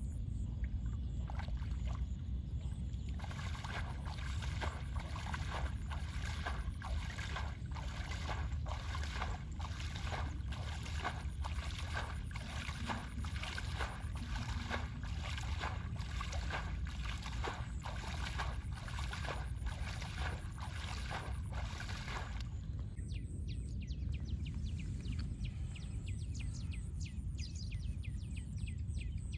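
Water sloshing and splashing in a steady rhythm, about two strokes a second, over a low rumble. The rhythm stops about three-quarters of the way through.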